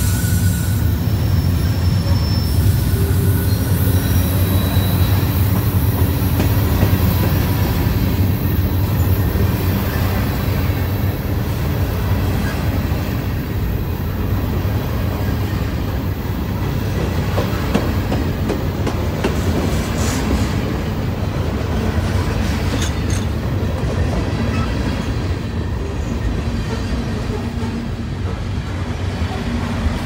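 Freight train cars, covered hoppers and boxcars, rolling past close by: a steady rumble and clatter of steel wheels on the rails.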